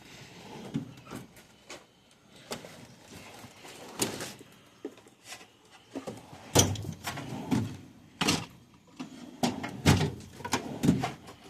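Toolbox drawers and tools being handled: a string of separate knocks and clunks, with a few louder ones in the second half.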